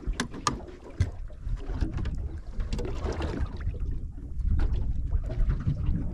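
Wind buffeting the microphone and water lapping against the hull of a drifting boat, with a few sharp clicks and knocks in the first second.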